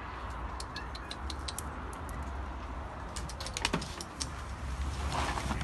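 Dry cat kibble clicking and rattling in quick irregular taps against a plastic puzzle-feeder toy.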